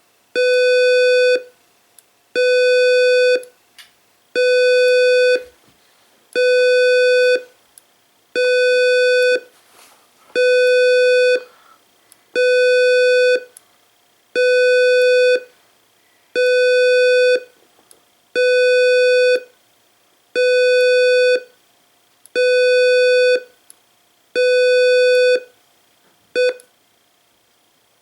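Simplex 2902-9732 LifeAlarm fire alarm speaker sounding a loud, steady-pitched buzzy alarm tone in an even on-off cadence: about a second and a half on, half a second off, repeating every two seconds. Near the end a short final pulse sounds and the tone stops.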